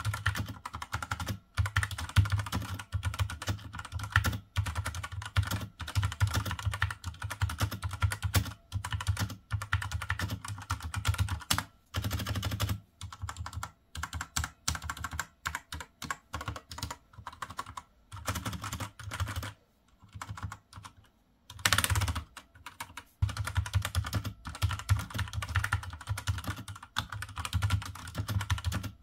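Fast typing on a Rampage Ally K11 mechanical keyboard with Outemu Red linear switches: a quick run of soft keystrokes without spring ping, broken by a short pause about two thirds of the way in.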